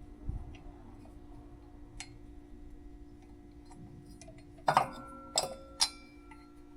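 Metal tools and parts clinking against metal: a few light ticks, then three sharp clinks near the end that ring on briefly, as a fan is worked blindly onto an engine shaft.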